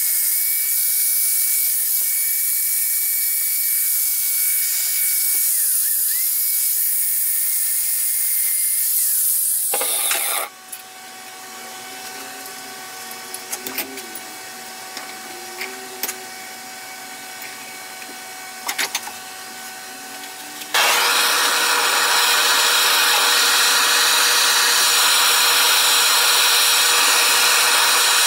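An angle grinder grinding a steel bar clamped in a vise, its whine dipping in pitch twice under load, stops about ten seconds in. A quieter stretch of a few light clicks of hand work on the metal follows. About 21 seconds in, a handheld gas torch starts up and burns with a steady rushing hiss.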